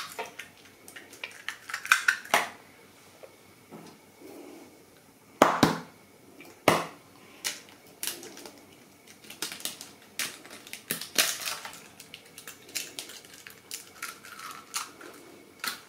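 Two eggs tapped and cracked open against the edge of a mixing bowl, one after the other, as sharp clicks and knocks with quieter shell crackles between them.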